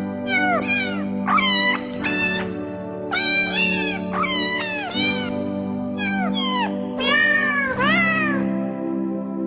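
A string of cat meows, about two a second, each sliding down in pitch and pitched to a tune, over sustained musical backing chords.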